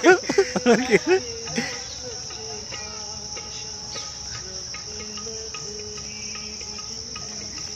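Steady high-pitched insect chirring. A voice calls out loudly over it in the first second.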